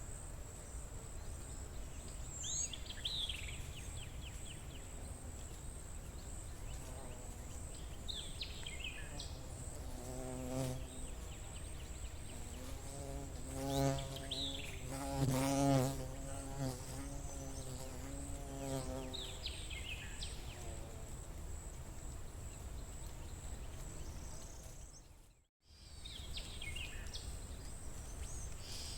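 A flying insect buzzing close by, growing louder towards the middle and fading away over several seconds, over a forest background of short falling bird chirps every few seconds and a steady high whine. The sound drops out for a moment near the end.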